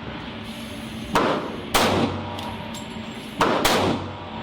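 Kel-Tec PF9 9mm pistol firing Winchester White Box rounds: four sharp shots, one about a second in, another half a second later, then a quick pair a little past three seconds.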